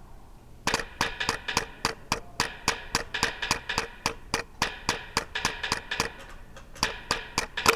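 A mallet striking hollow dried gourds: a rapid, slightly uneven run of knocks, about four or five a second, each with a short hollow pitched ring, starting about a second in.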